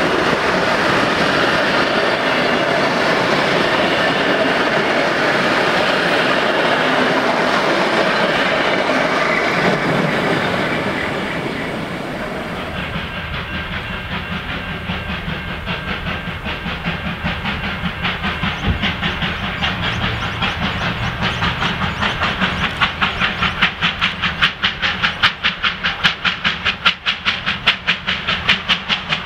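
Steel passenger carriages rolling past close by, their wheels clattering over the rail joints. Then, after a cut, a pair of R class Hudson steam locomotives approaching up a bank, their exhaust chuffing in a rapid, regular beat that grows louder as they near.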